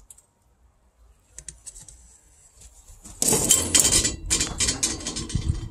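A few light clicks, then about two seconds of loud metallic clatter and rattling as the steel door of a small electric tabletop assay furnace is swung shut and latched.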